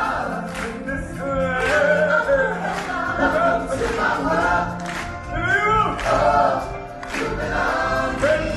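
Stage-show music: a lead singer and a choir singing together, with knocks of percussion under the voices.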